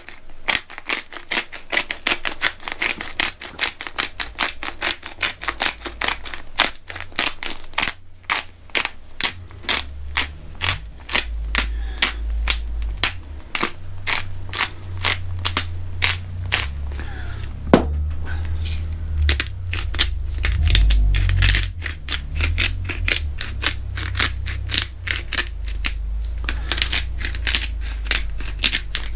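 Hand-twisted pepper and salt grinders cracking Tellicherry black peppercorns and then pink Himalayan rock salt over raw steaks: a fast, steady run of crunching clicks from the grinder mechanisms. A low rumble runs underneath from about a third of the way in.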